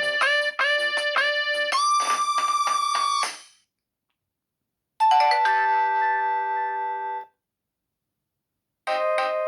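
Nokia 3120 ringtones played one after another on a Nokia 5130 XpressMusic phone's speaker. A fast electronic melody fades out about three seconds in. A short chime of several held notes follows about five seconds in, and another tune starts near the end.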